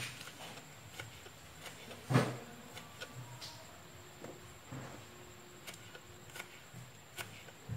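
Kitchen knife slicing shallots on a wooden cutting board: irregular light taps of the blade on the wood, with one louder knock about two seconds in.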